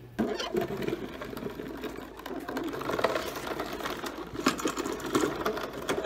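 Mechanic's creeper casters rolling and rattling on a concrete shop floor, a continuous rapid rattle with a couple of sharper knocks near the end.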